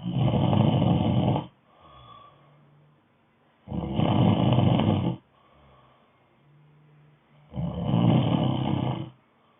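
Snoring in a steady rhythm: three long, loud snores about four seconds apart, with quiet breathing between them.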